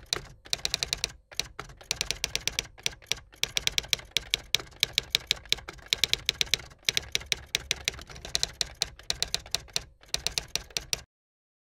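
Typing sound effect: rapid key clicks, several a second with short pauses, as on-screen text types itself out. The clicks stop abruptly near the end.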